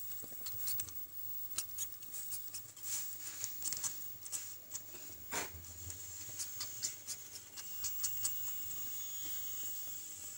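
Sleeping kitten sucking on its own paw like a nursing baby: small, irregular wet clicks and smacks, over a faint steady high hiss.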